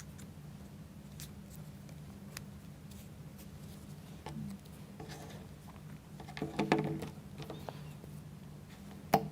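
Faint, sparse clicks and rustles of hands handling wooden model-kit parts while a rubber band is fitted onto a wooden wheel, over a steady low hum. A short cluster of handling noise comes about two-thirds of the way in, and a sharp click just before the end.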